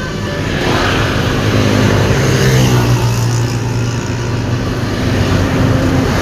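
Heavy road traffic passing close by: a steady low engine drone from a large vehicle, with tyre and road noise that swells and fades as vehicles go by.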